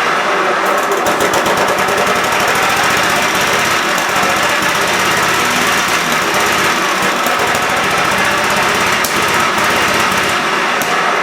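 Cub Cadet lawn tractor's Kohler engine running steadily at speed, a fast even rattling drone with no break.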